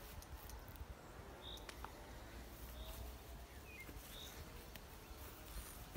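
Quiet outdoor ambience: a faint low rumble, with a bird's short high note repeating about every second and a half and a few faint chirps and clicks.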